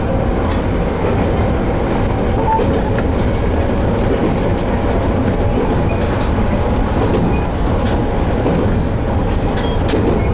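Toyama Chiho Railway Tateyama Line train running along the track: a steady rumble of wheels on rails with faint scattered clicks.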